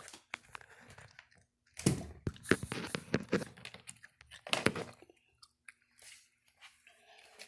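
Miniature dachshund puppy digging and nosing into the blankets of its crate bed, making scratchy, crunchy rustling of fabric in irregular bursts with sharp little clicks. The bursts are loudest about two seconds in and again near five seconds.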